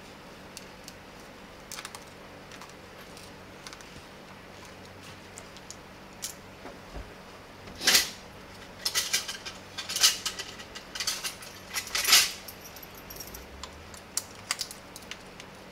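Clicks and clatter of a professional hair-straightening flat iron's plastic housing and small metal parts being handled and put back together on a table. Faint scattered ticks at first, then a run of sharp knocks and rattles, the loudest about eight, ten and twelve seconds in.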